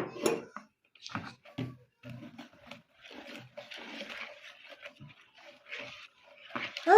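Irregular light knocks, clinks and scraping of kitchen utensils and bowls during cupcake baking. Just before the end, a child's voice cries out.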